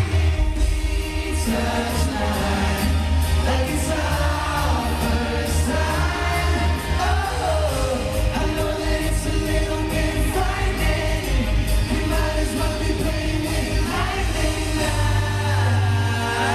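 Live pop song performed by a boy band: male voices singing over a loud pop backing with heavy, continuous bass, heard from among an arena audience.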